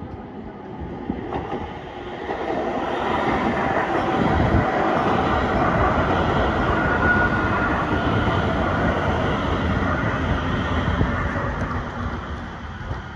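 A RET metro train passing over a level crossing. The rumble builds about two seconds in, is loudest through the middle as the cars cross, and fades away near the end.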